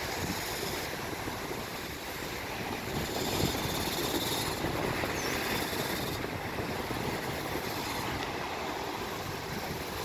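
Small sea waves washing over shoreline rocks: a steady rushing noise.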